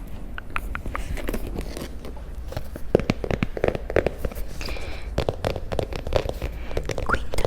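Close-miked handling and tapping of small objects: an irregular run of short clicks and taps.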